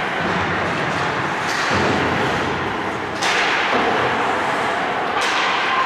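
Ice hockey play in an arena: a steady hiss of rink noise with three sudden sharp hits, about a second and a half, three, and five seconds in.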